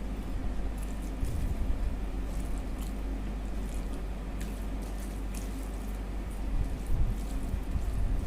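Chewing and wet mouth sounds of someone eating egg curry with rice: scattered soft smacks and squishes over a steady low hum.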